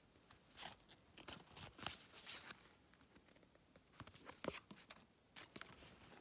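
Faint, irregular rustling and clicking of paper hang tags being handled and turned over between fingers.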